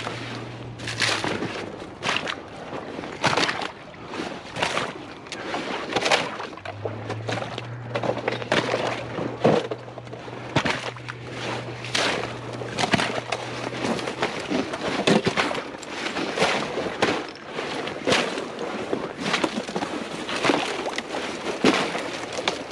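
Footsteps sloshing through shallow water and swampy ground at a steady walking pace, a step every half second to a second.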